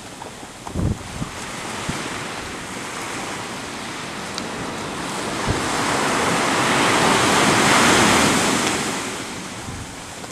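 Sea surf and wind with wind rumble on the microphone: a steady rushing hiss that swells to its loudest about eight seconds in and then fades. A brief low thump of wind on the microphone about a second in.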